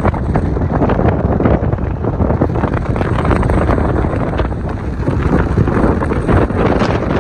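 Wind buffeting the microphone of a phone filming from a moving car's window: a loud, steady, rumbling rush with crackles running through it.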